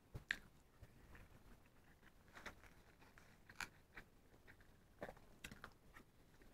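Faint, scattered light clicks and taps, about a dozen over several seconds, of handling around a black plastic bento tray.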